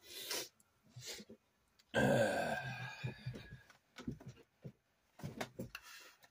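A man's short groan about two seconds in, the loudest sound. Scattered light clicks and knocks of RC-car parts being handled on a workbench come before and after it.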